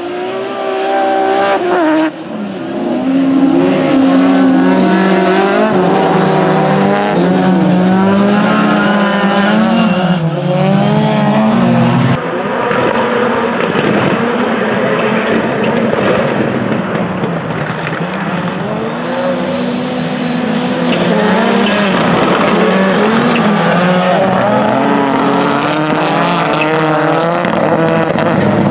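Several rallycross race cars at full race pace, their engines revving hard and dropping back again and again through gear changes as they pass. The sound changes abruptly twice, about two and about twelve seconds in.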